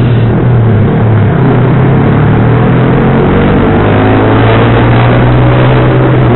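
Sport motorcycle with an aftermarket racing exhaust under throttle in traffic, its engine note climbing slowly from about two seconds in, with wind rushing over the helmet camera's microphone.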